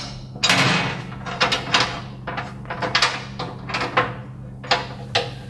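Irregular series of sharp metal knocks and clanks from hardware being fitted by hand inside a sheet-metal machine stand, some strikes ringing briefly, over a steady low hum.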